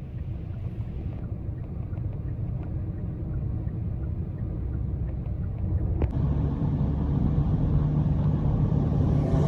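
A car being driven, heard from inside the cabin: a steady low engine and road rumble that grows gradually louder, with a single click about six seconds in.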